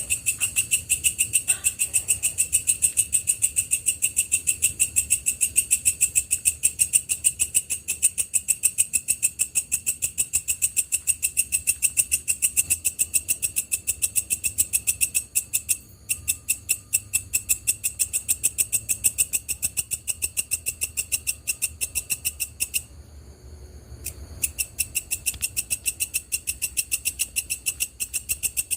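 A night-singing grasshopper stridulating: a loud, high-pitched buzz made of rapid, evenly spaced pulses. The song breaks off for about a second around three-quarters of the way through, then starts again.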